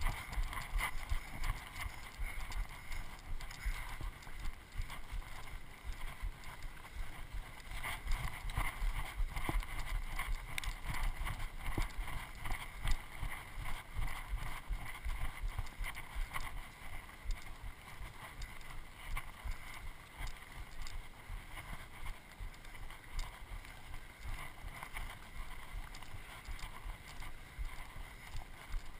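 Steady rustling and irregular soft knocks from a body-worn camera on someone walking up a dry dirt trail: footfalls and body movement carried straight to the microphone.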